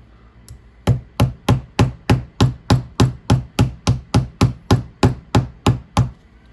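A small hammer tapping repeatedly on a part: about eighteen even, sharp strikes at roughly three a second, starting about a second in and stopping near the end.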